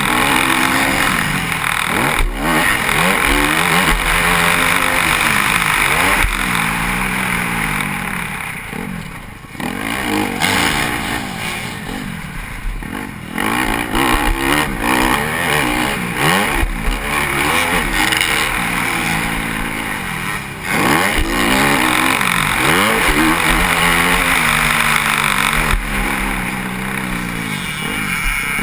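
Motocross bike engine revving hard and falling away again and again as the throttle is opened and rolled off through jumps and turns, with a few brief dips where the throttle is chopped. A steady rush of wind noise on the helmet-mounted microphone runs under it.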